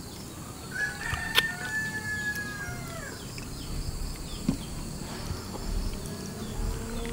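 A rooster crows once, one long call about a second in, over the steady high drone of insects.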